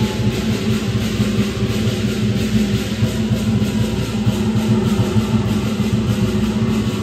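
Lion dance percussion (drum, cymbals and gong) playing a loud, fast, steady beat that keeps going without a break.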